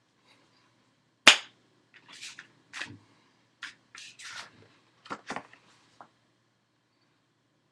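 A single sharp slap about a second in, then a string of short, softer rustling and brushing noises from hands moving close to the microphone.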